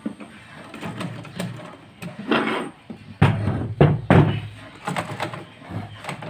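Irregular metallic knocks and clunks as the parts of a sewing machine are handled and worked on. A low hum joins about three seconds in and fades near the end.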